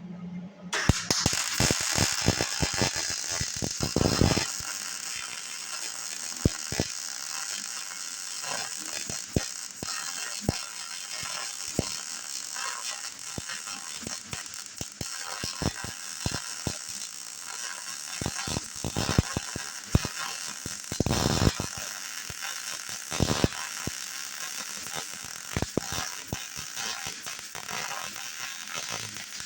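MIG welder arc crackling with a steady sizzle, starting about a second in, as weld is laid into a wide gap on the frog of a backhoe bucket.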